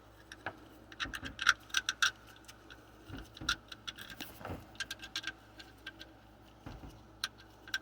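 Irregular light metallic clicks and taps of a 5/32 Allen wrench working the bolts of an oil block-off plate, metal on metal, with a faint ring after some clicks.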